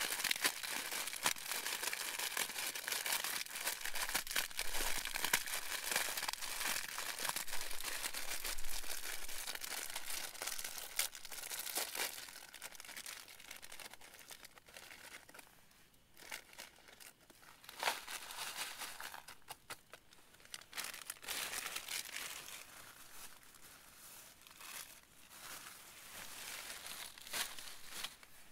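Plastic wrapping being handled, crinkling and rustling: dense for the first dozen seconds, then in scattered short bursts.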